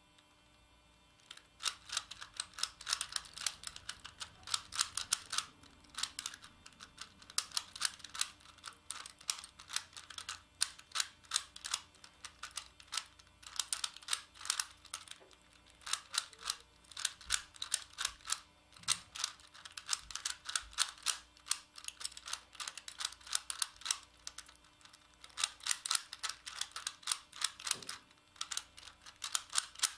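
Megaminx puzzle being turned quickly by hand: rapid runs of plastic clicks and clacks as its faces rotate, starting about a second in, with brief pauses between runs.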